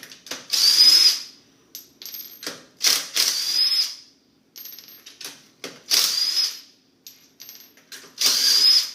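A handheld power tool spinning out already-loosened wheel bolts in four separate runs of about a second each, its motor whine rising as each run starts. Short clicks and rattles of the bolts being handled come between the runs.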